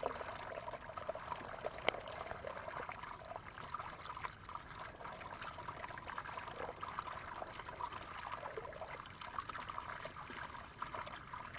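Water trickling and splashing steadily, with one sharp click about two seconds in.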